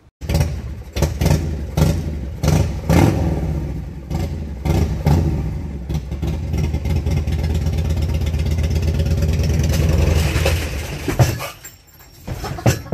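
Motorcycle engine being ridden into a camper's garage. It is revved in short blips at first, then held steadier and louder, and it falls away about eleven seconds in.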